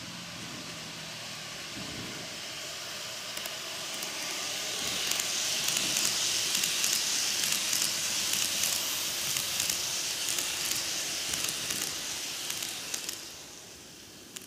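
N-gauge model train running on track, the 10-car Tokyu 2020 series passing close: a steady rushing hiss of small wheels rolling on the rails, with rapid fine clicks. It grows louder after a few seconds and fades away near the end.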